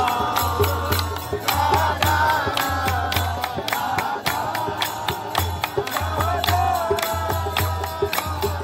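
A group singing a Hindu devotional chant (kirtan), with steady rhythmic hand clapping and a pulsing low beat under the voices.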